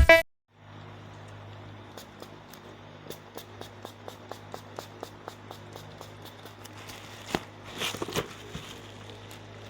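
Light clicks at about three a second from a plastic model kit box being handled, over a steady low electrical hum, with a short rustle of packaging about eight seconds in.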